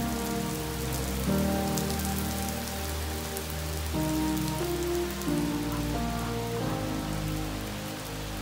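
Steady rain falling, under background music of slow, held chords that change every second or so.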